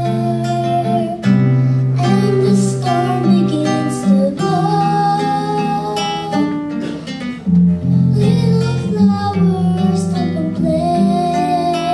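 Gospel song with strummed acoustic guitar over steady bass notes and a held melody line that moves from note to note every second or two.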